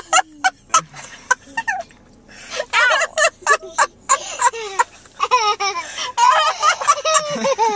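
A woman laughing hard in a string of short, high-pitched cackles that rise and fall in pitch, coming thickest from about two and a half seconds in.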